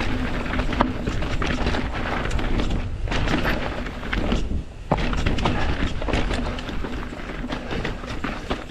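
Mountain bike riding fast down a rocky dirt trail: tyres crunching over rock and loose dirt, the bike rattling and clattering over bumps. Wind buffets the microphone with a steady low rumble.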